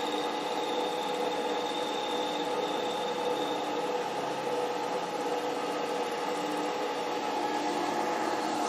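Milling machine spindle running with a 2 mm end mill cutting into the end of a steel lathe parting blade: a steady sound of several held tones over a rough cutting hiss.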